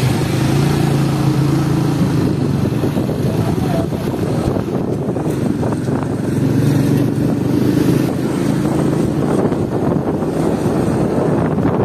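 Motorcycle engine running at riding speed, heard from the pillion seat: a low hum that swells and fades a few times over a steady rush of road noise.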